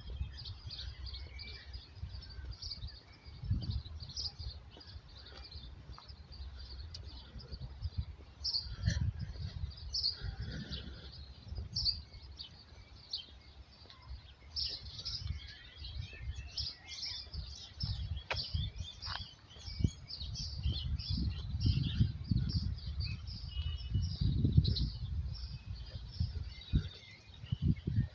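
Many small birds chirping and twittering in a steady high chorus. Bursts of low rumble on the microphone come and go, heaviest in the last third.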